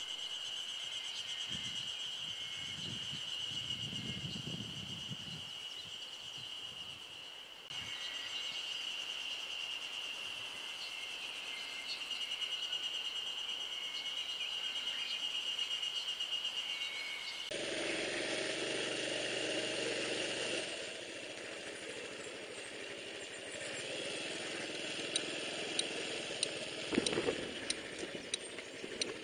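A steady, high insect trill with some birdsong. About two-thirds of the way in, the sound cuts abruptly to a Honda Super Cub 110's single-cylinder four-stroke engine running on the move, with wind noise, and sharp clicks and rattles near the end.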